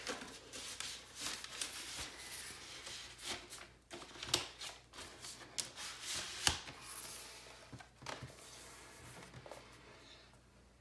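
Paper inner sleeve holding a vinyl LP rustling and scraping as it is slid into the pocket of a cardboard gatefold jacket, with two sharp clicks about four and six and a half seconds in. The handling noise dies away near the end.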